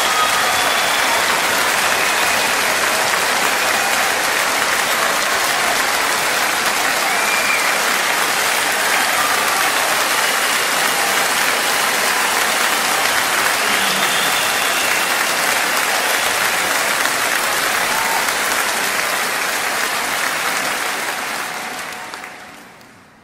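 Wind rushing over the action camera's microphone as a steady crackling hiss, fading out near the end.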